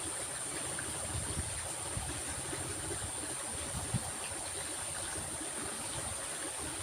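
Stream water flowing steadily, with irregular low gurgling and a constant high-pitched hiss.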